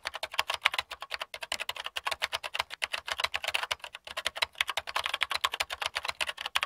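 Typing sound effect: a fast, unbroken run of key clicks.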